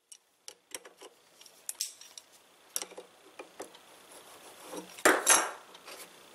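Metal tools and parts clinking and tapping as they are handled on a workbench, with a louder clatter about five seconds in.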